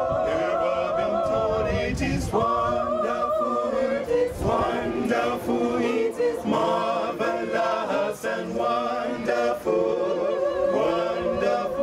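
Mixed choir of men's and women's voices singing a hymn a cappella in harmony: long held chords with vibrato, phrase after phrase, with short breaks between them.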